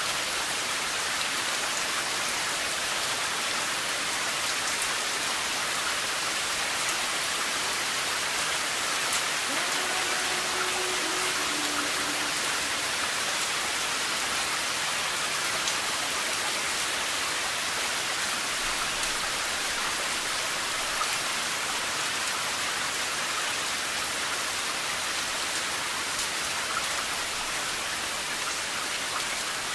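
Steady rain falling, an even hiss with a fine patter of drops.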